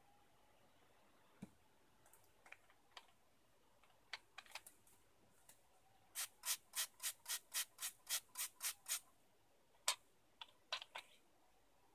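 A quick run of about a dozen short rubbing or scraping strokes, about four a second, lasting about three seconds past the middle. Scattered faint clicks come before and after it.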